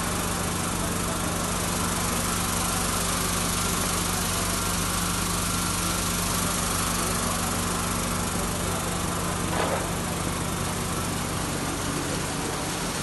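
Tea colour sorting machine line running, with its inclined cleated belt conveyor and tea feeder: a steady low machine hum with a few held tones under a continuous hiss. A short, sharper sound stands out about ten seconds in.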